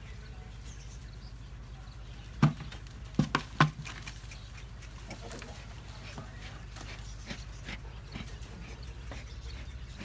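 Goat pen ambience: a steady low rumble with faint scattered clicks, broken by four short, sharp, loud sounds in quick succession around three seconds in.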